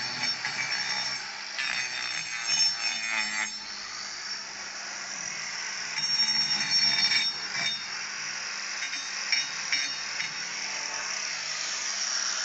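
Angle grinder with a hoof-trimming disc running with a steady motor whine, with rougher, louder stretches at about two to three seconds, six to seven seconds and nine to ten seconds in as the disc grinds the cow's hoof horn.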